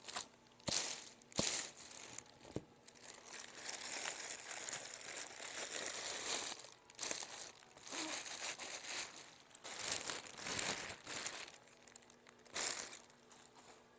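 A plastic bag crinkling and rustling in uneven bursts as a boxed model locomotive is pulled out of it by hand, with a few sharp clicks in the first three seconds.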